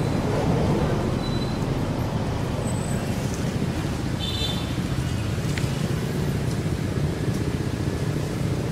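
Steady low rumbling background noise with no clear breaks, and a couple of faint short high chirps about four seconds in.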